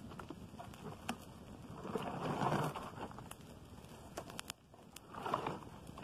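Wood fire crackling, with scattered sharp pops and two louder rushing swells of noise, about two and five seconds in.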